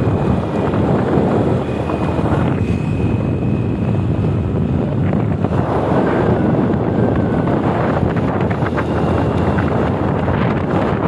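Steady wind buffeting the microphone: a dense low rumble throughout, with a faint thin high tone coming and going.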